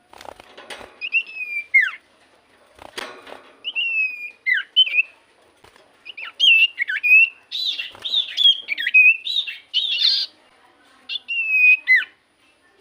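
A sirtu cipoh songbird sings in groups of clear, sweeping whistled notes, several of them dropping sharply in pitch, with short pauses between the groups. The busiest run comes from about six to ten seconds in. Two faint clicks sound near the start.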